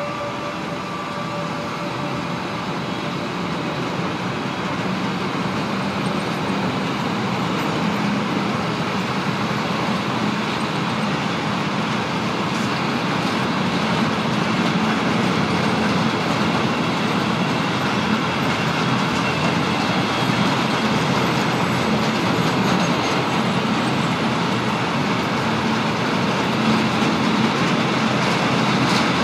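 Freight train of open high-sided goods wagons rolling past: steady wheel-on-rail noise that grows slowly louder.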